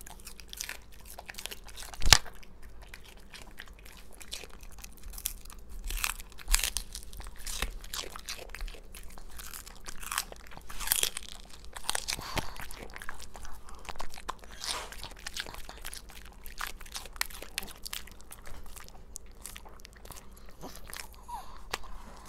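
Pugs biting and chewing raw celery sticks: irregular crunches throughout, with one loud snap about two seconds in.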